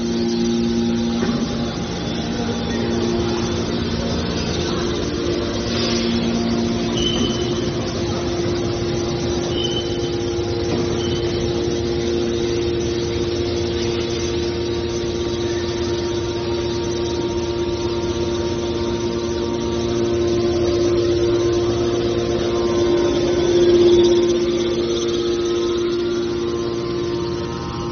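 Hydraulic metal shear baler running: a steady whine from its hydraulic pump and motor, swelling briefly near the end, with a few short high squeaks.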